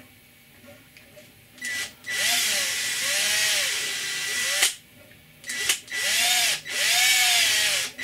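Cordless drill boring small tap-drill holes for an M4 tap through a panel, via a drill template. After a short blip it runs for about two and a half seconds, stops, gives a couple of brief blips, then runs again for about two seconds, its pitch rising and falling with the trigger and the load.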